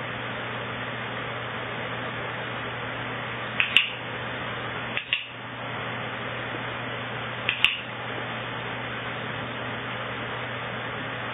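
A dog-training clicker snapping three times, each a quick double click, marking the dog's responses during target training. A running electric fan gives a steady whooshing hum underneath.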